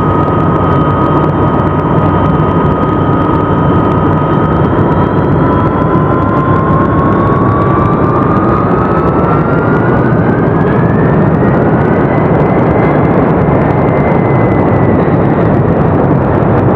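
Jet fighter's engines running: a loud, steady rushing noise with a high turbine whine that rises slowly in pitch through the middle and then holds.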